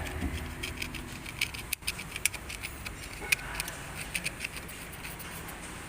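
Irregular light clicks and taps over a low, steady background noise.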